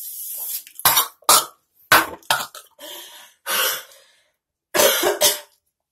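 A person's sneezing fit: a quick run of sharp, explosive sneezes and coughs, about five in the first two and a half seconds, then two longer ones later on.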